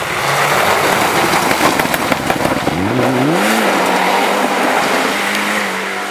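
Mitsubishi Lancer Evolution rally car driven hard on loose gravel, its turbocharged four-cylinder engine at high revs. The engine pitch climbs sharply about three seconds in as the car accelerates out of the corner, then holds a steady high note, over the hiss and spatter of gravel thrown up by the tyres.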